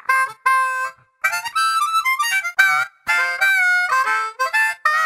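Harmonica music: a tune played in short phrases with brief breaks between them, some notes bent.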